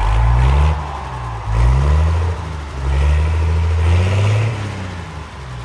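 Model California Zephyr passenger train running past close by: a low rumble of wheels on the track with a light motor whir, swelling and easing several times as the cars go by.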